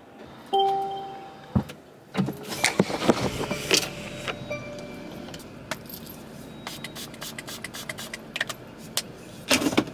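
A short beep about half a second in, then a run of clicks and knocks from a car door and from handling things in the cabin, with keys jangling.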